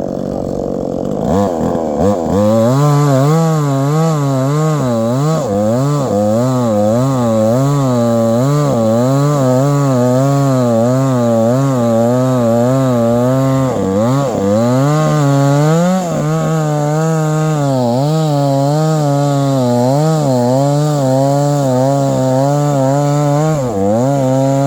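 Chainsaw engine cutting into a tree, its pitch rising and dipping over and over as the chain bites and frees in the wood. It revs up about a second and a half in and briefly drops and picks up again twice past the middle.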